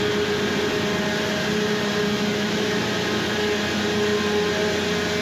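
Steady drone of ship engine-room machinery: a dense, even noise with a couple of steady humming tones underneath.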